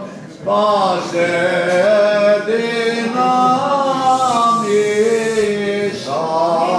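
Byzantine Orthodox chant: a chanter sings a slow, ornamented melody over a steady held low drone note (the ison), with a short breath just after the start.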